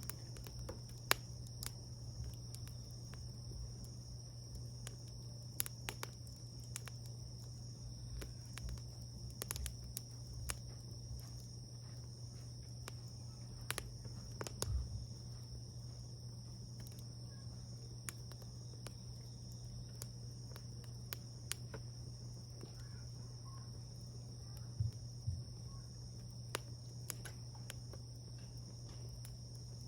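Wood fire crackling, with irregular sharp pops and snaps, a few louder ones about halfway and near the end. Under it runs a steady high insect trill, like crickets.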